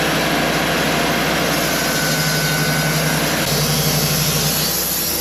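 Sawmill's engine running steadily under load as the blade cuts a slab from a log.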